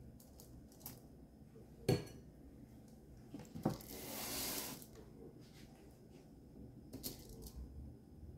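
Kitchen knife and disposable aluminium foil pan handled on a countertop: a sharp clink about two seconds in, another knock shortly before the middle, then about a second of scraping rustle, with a few faint ticks later.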